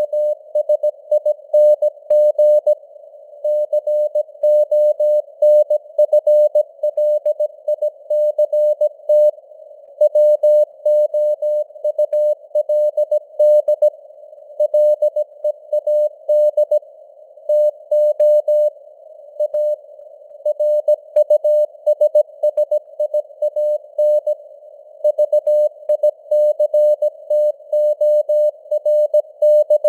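Morse code (CW) sent at 17 words per minute as a single steady tone keyed on and off in dots and dashes, with short pauses between words. A narrow hiss of simulated radio noise sits around the tone.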